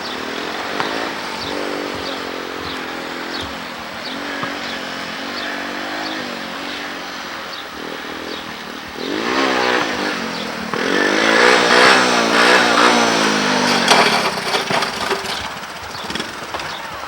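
Three-wheeler ATV's small engine running and revving, its pitch rising and falling as the throttle opens and closes. It grows louder for several seconds past the middle, then drops back.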